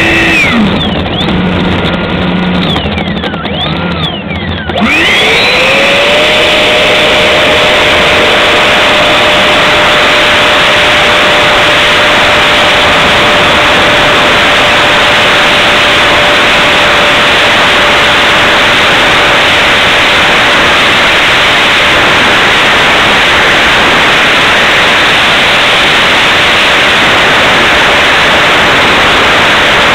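HSD Viper 75mm electric ducted fan, heard from on board the model jet: for the first few seconds its pitch wanders at low power, then about five seconds in it spools up with a rising whine. It then holds a loud, steady whine over a rushing roar at high power through the takeoff and climb.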